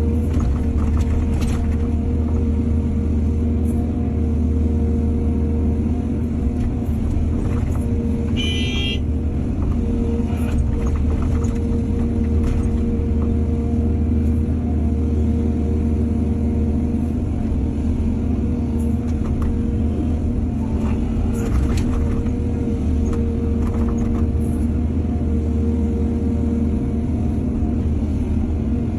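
Hydraulic excavator's diesel engine running steadily under load, with occasional clanks of the bucket and a brief high-pitched squeal about eight seconds in.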